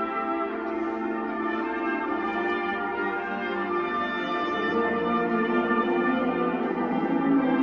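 Marching band brass section playing sustained, held chords that shift to a new chord partway through.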